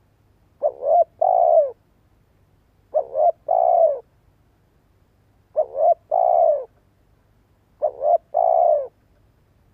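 Spotted dove cooing: four phrases about two to three seconds apart, each a short double note followed by a longer coo that falls in pitch.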